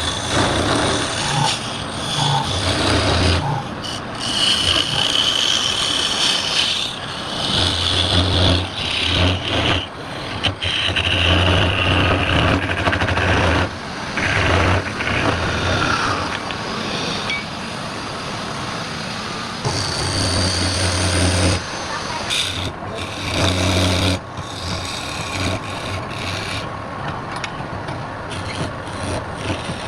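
Woodturning lathe at work: a tool or abrasive rubbing and scraping against spinning wood, with a low hum that comes and goes in stretches of a second or two.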